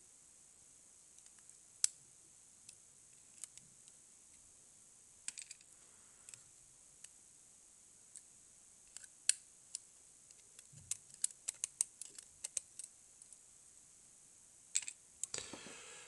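Small metallic clicks and taps from pins, springs and a tool being handled while a brass Mul-T-Lock cylinder is taken apart, with a quicker run of clicks in the last third.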